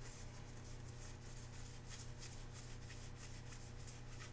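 Stack of trading cards being leafed through by hand, cards sliding and flicking against one another in a run of faint quick rustles over a steady low hum.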